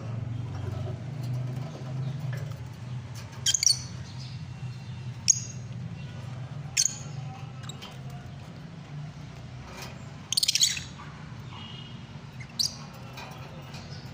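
Lovebirds giving short, shrill chirps, about five calls a second or more apart, the longest a chattering call about ten seconds in, over a steady low hum.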